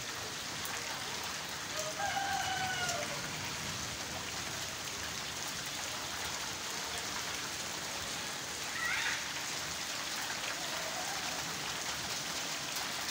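Heavy rain falling steadily on a concrete rooftop. A short pitched call, falling slightly, sounds about two seconds in, and a brief chirp near nine seconds.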